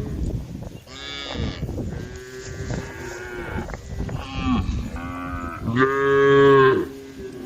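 Several cattle mooing one after another, their calls overlapping, with the loudest and longest call about six seconds in.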